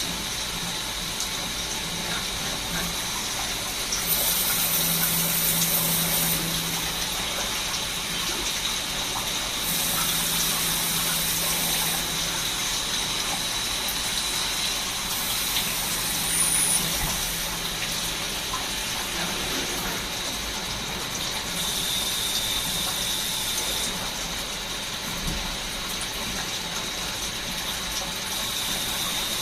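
Swiss-type CNC lathe running while machining a bone screw, its coolant oil splashing steadily. About every six seconds a higher hiss and a low hum come in for roughly two seconds as the machine cycles.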